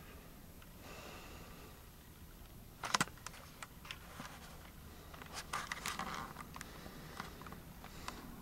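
Faint handling noise: a sharp click about three seconds in, then scattered light ticks and a brief rustle.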